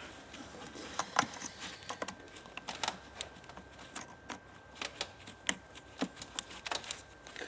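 Scattered light clicks and taps at irregular intervals: hands fitting plastic connector plugs and pipes on an engine during reassembly.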